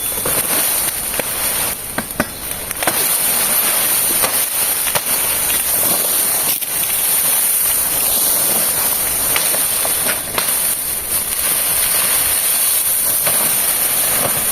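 Dry peach palm fronds rustling and crackling as they are pulled and cleared by hand and machete, with many scattered sharp snaps and chops.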